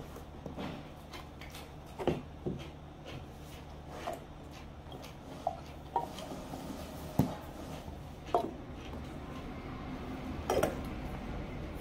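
Stainless steel lunchbox bowls and plastic container lids being handled and fitted together: about seven short, scattered clinks and knocks over a faint steady low hum.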